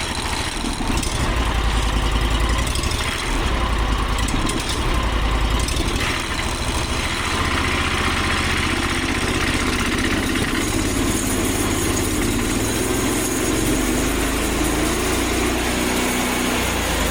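Small gas engine of a Woodland Mills sawmill running steadily just after its first start. About six seconds in the sound changes and grows brighter, and a thin high whine joins in a few seconds later.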